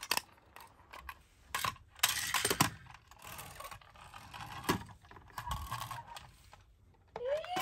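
Toy ambulances, small die-cast and plastic models, being handled and set down on a wooden floor: scattered clicks and knocks, with a short scraping run a little after two seconds. Near the end an electronic toy tone starts, rising in pitch and then holding steady.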